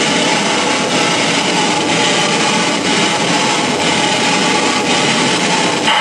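Harsh noise played live on tabletop electronics and effects pedals: a loud, steady, dense wall of grinding noise.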